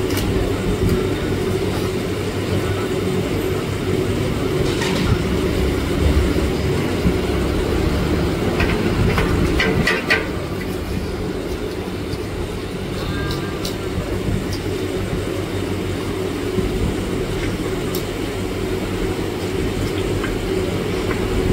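Steady low rumbling roar of a gas burner under a wok of frying oil. Metal ladles clink against the steel pot a few times about halfway through.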